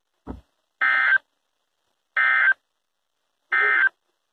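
EAS end-of-message code on a NOAA Weather Radio broadcast: three short bursts of buzzing digital data tones about a second apart, marking the end of the warning. A brief low thump comes just before the first burst.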